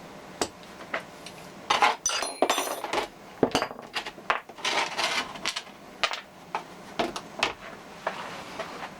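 Metal parts being handled: an irregular run of sharp clinks and knocks, some briefly ringing, busiest in the middle.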